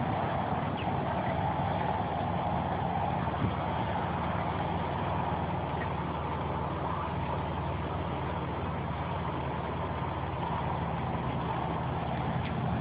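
Camera drone's motors and propellers running steadily in flight, a constant whirring hum.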